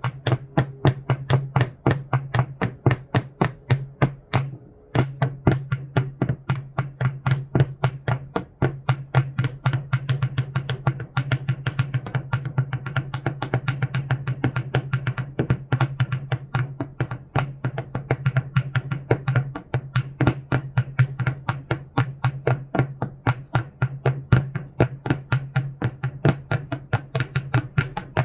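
Rapid clacking and knocking, several hits a second with no steady beat, from stones struck together in an electronic noise piece. A steady low hum runs underneath and drops out briefly about five seconds in.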